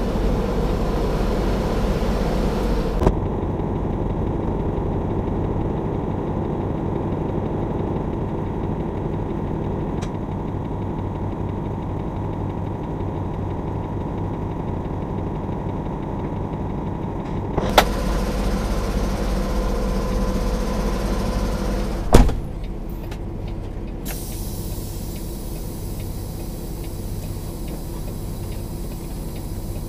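Semi-truck diesel engine idling steadily, with a short knock a bit past the middle and a loud thud about three-quarters of the way through, the cab door being shut.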